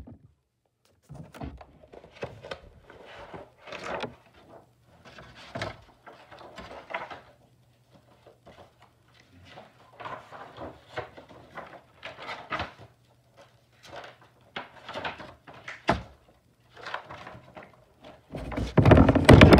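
Scattered light knocks, taps and rustles of things being handled close to the microphone, irregular and of varying strength, over a faint low hum.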